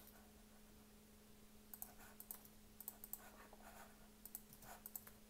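Faint clicks of a computer mouse and keyboard, in a few short clusters, over a steady faint hum.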